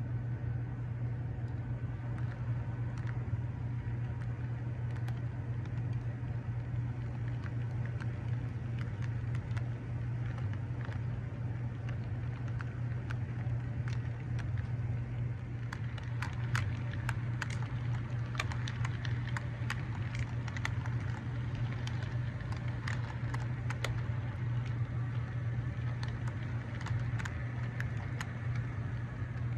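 Diesel engine sound from HO scale model locomotives of the GP7u and GP35u type, a steady low engine drone. From about halfway in it is joined by frequent small sharp clicks and ticks.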